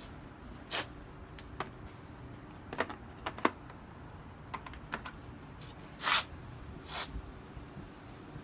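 Chrome vanadium sockets from a half-inch socket set being handled, giving a dozen or so light, irregular clicks and knocks, with two slightly longer rattles about six and seven seconds in.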